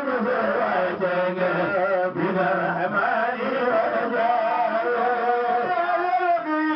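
Men chanting religious verse into a microphone: a melismatic melody with long, wavering held notes.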